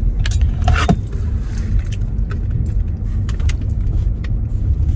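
Car cabin noise while driving: a steady low rumble from the engine and tyres, with a few light clicks and taps.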